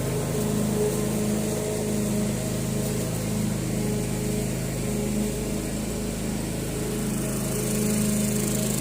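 Push lawn mower running steadily, its motor giving an even, unbroken drone.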